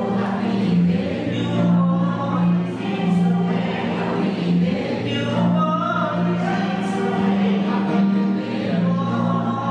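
Gospel choir of mixed men's and women's voices singing together, accompanied by acoustic guitar.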